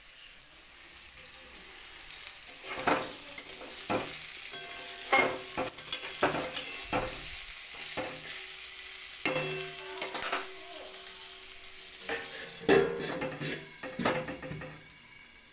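Chicken and green chillies sizzling in a steel kadai while a spoon stirs and scrapes around the pan, with repeated sharp metal clinks and knocks, some ringing briefly. Near the end a steel plate is set over the pan as a lid with a few clanks.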